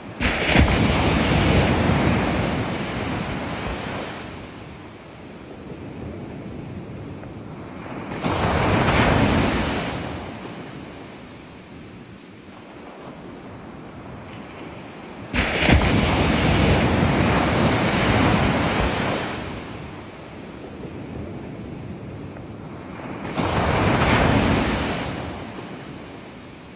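Ocean surf: four waves break and wash in one after another, the first and third with a sudden crash. Each fades away over a few seconds.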